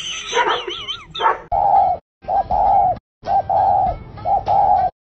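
A dog's wavering, yodel-like howl for about the first second, then a spotted dove cooing: four calls about a second apart, most a short note followed by a longer held coo, with abrupt breaks between them.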